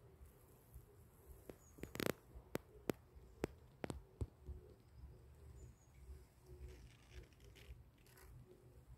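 Quiet outdoor ambience with a low rumble, broken by a handful of sharp clicks clustered about two to four seconds in.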